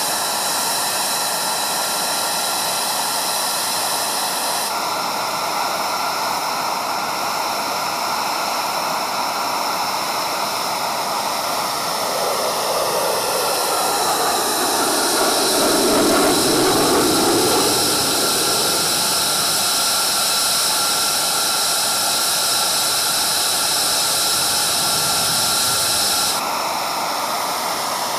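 F-22 Raptor's twin Pratt & Whitney F119 turbofans in flight: a continuous jet noise with a steady high whine. It swells louder and deeper as the jet passes close, about two-thirds of the way through, and the sound changes abruptly twice where clips are spliced.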